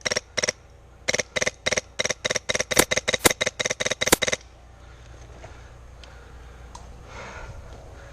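An airsoft gun firing a quick string of about twenty shots, roughly five a second in short runs, stopping about four seconds in. Low rustling of movement follows.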